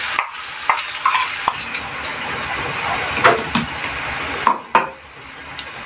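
Garlic and green chilli paste sizzling in hot oil in a metal kadhai, with a spoon clinking and scraping against the pan. The sizzle dies down about four and a half seconds in, followed by a couple of sharp clinks.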